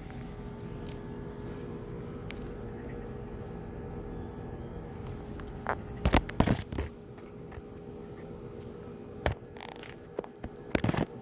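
Short sharp knocks and scrapes over a steady low hum: a cluster about six seconds in, a single one a few seconds later and another cluster near the end.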